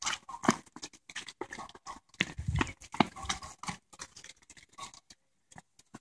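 Footsteps of runners passing close on a brick path, as irregular footfalls with their breathing mixed in. The sounds thin out near the end as the group clears.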